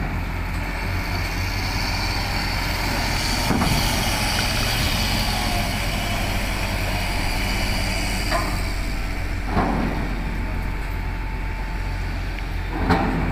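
Loaded cargo truck's engine running as it drives slowly up a ship's steel loading ramp, over a steady low mechanical hum, with a few short knocks scattered through.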